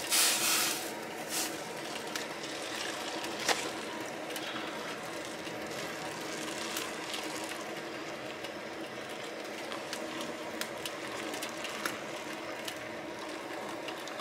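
Hot, boiled-down maple sap poured from a stainless steel pan into a filter-lined funnel. It is louder for about the first half-second, then settles to a quiet, steady trickle with scattered light clicks.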